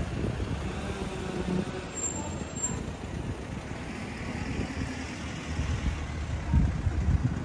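City street traffic: a motor vehicle running close by with a low rumble that swells near the end.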